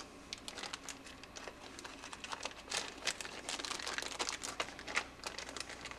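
A small clear plastic bag crinkling as stove wicks are stuffed into it and it is handled. The crackles are irregular and get busier in the second half.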